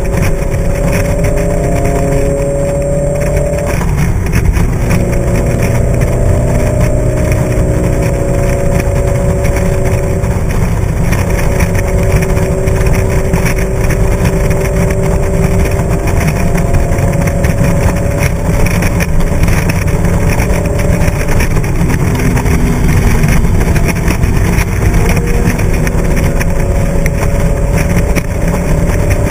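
Steady wind rumble and road noise on a camera mounted on a vehicle moving at highway speed, with an engine drone whose pitch drifts slowly up and down.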